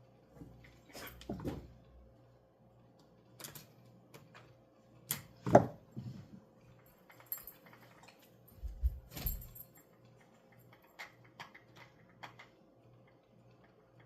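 Clicks and knocks of small hard parts and tools being handled while working on an RC buggy, with a sharp knock about five and a half seconds in and a dull thud a few seconds later, over a faint steady hum.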